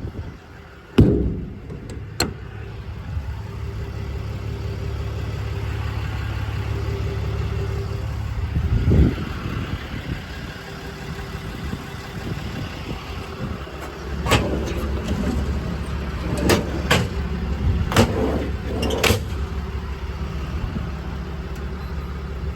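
Steady low running of a diesel truck engine at idle, with several sharp metallic knocks and clatters as the service body's compartment doors and slide-out drawers are opened and shut: a couple early on and a cluster near the middle to later part.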